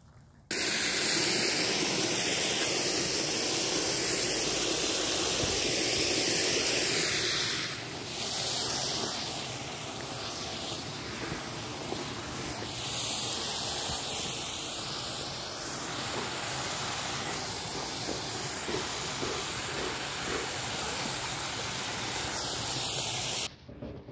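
A loud, steady hiss that starts and stops abruptly, dropping to a lower level about seven and a half seconds in.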